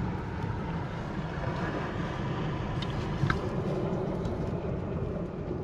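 Wind buffeting the microphone: a steady low rumble, with a few faint clicks about three seconds in.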